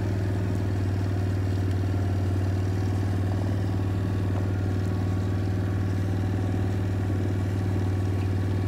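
Small utility vehicle's engine running steadily as it creeps slowly along a grass path, with an even tone that does not change.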